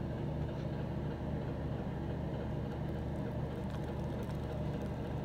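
A steady low hum, like a fan or motor running, with a few faint light ticks in the second half.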